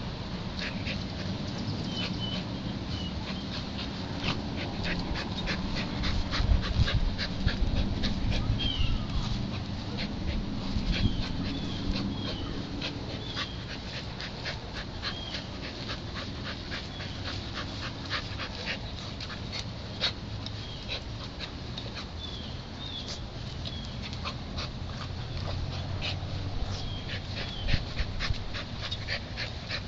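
A dog whimpering in short high squeaks while it noses a brick across a grassy yard, with many light clicks and occasional low thuds.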